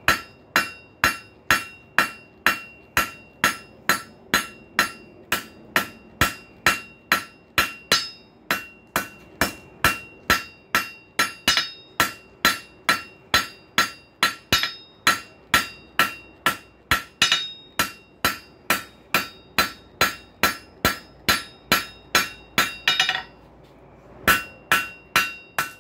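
Hand forging hammer striking a hot steel rail spike on an anvil in a steady rhythm of about two blows a second, a ring carrying between blows. The blows are drawing the spike's shank out square and more slender. A brief pause comes near the end, then a few more blows.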